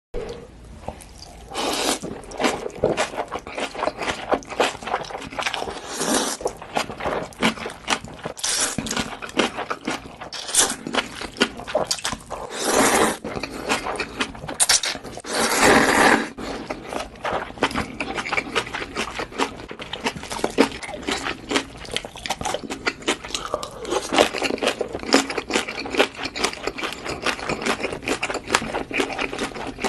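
Close-up eating sounds of spicy Korean noodles: rapid wet mouth clicks of chewing and slurping, with several louder stretches about a second long.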